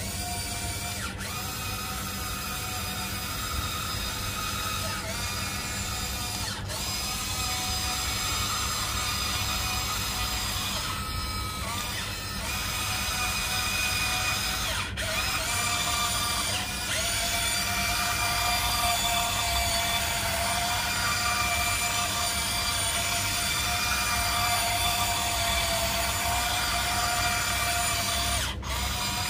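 Huina 1594 RC excavator's electric motors and gearboxes whining as it drives on its tracks and works its boom, with the pitch shifting in steps as the controls change. The sound is a little louder in the second half.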